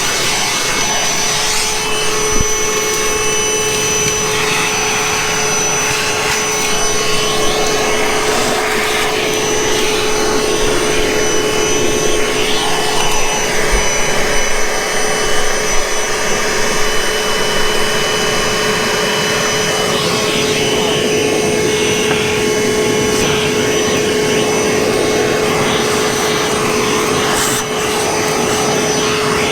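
Milwaukee M18 cordless shop vac running steadily with a constant motor whine, sucking up debris from the floor, the pitch of the airflow shifting as the nozzle moves across it.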